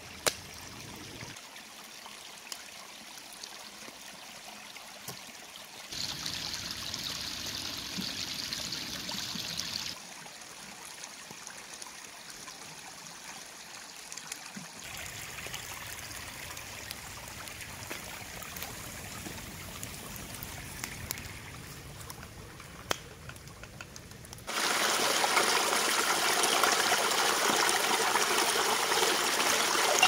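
A small woodland creek trickling and running over stones, its level jumping up and down abruptly several times. About 25 seconds in it turns loud and full: water from a small cascade splashing over a lidded black pot held in the stream.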